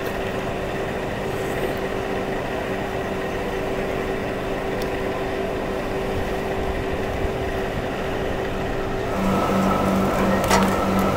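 Plywood factory machinery running with a steady noise and a constant hum. About nine seconds in, the noise grows louder as a pulsing hum, about two pulses a second, and a higher whine join in.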